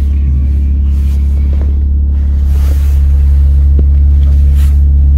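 2020 Jeep Cherokee Trailhawk's engine and exhaust running at a standstill, a loud, steady, deep drone heard inside the cabin that gets a little louder about three seconds in. The muffler is loud because it needs an adjustment, on a used vehicle that has not yet been safety-inspected.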